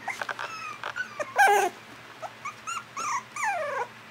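Miniature American Eskimo puppy whimpering: a string of short, high cries, several sliding down in pitch, the loudest about a second and a half in. Soft clicks of mouthing and chewing come in the first second.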